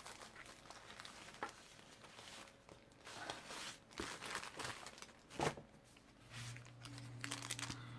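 Faint crinkling and rustling of plastic packaging and paper being handled, with scattered small clicks. A low steady hum comes in about six seconds in.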